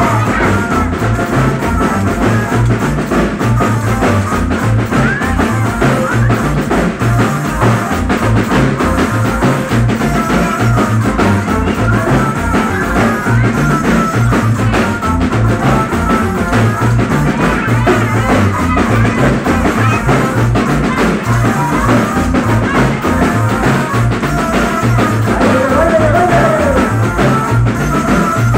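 Loud dance music with a bouncing bass line and a steady drum beat.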